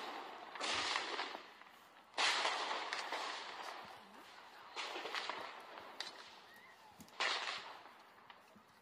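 Recorded fireworks played from a puppy sound-proofing app: four bangs with crackling, each fading out over a second or two, as noise-desensitisation training.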